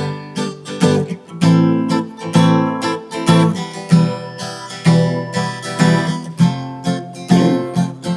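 Acoustic guitar strummed in a steady rhythm, chords ringing between the strokes, with no singing over it.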